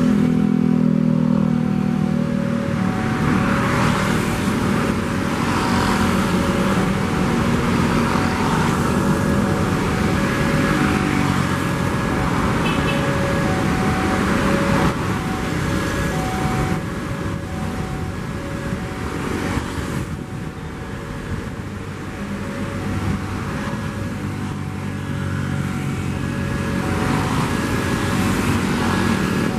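Level crossing warning signal sounding two tones that alternate steadily, high and low, over the noise of road traffic held at the crossing.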